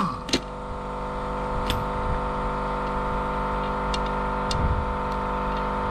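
A motor running steadily at a constant speed, an even drone, with a few light clicks and a soft low knock about four and a half seconds in.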